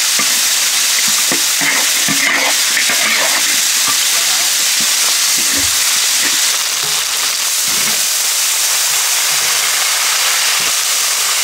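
Scallions, doubanjiang, Sichuan peppercorns and a spice bag frying in hot oil, a steady sizzle, with a spatula stirring and scraping against the pot now and then.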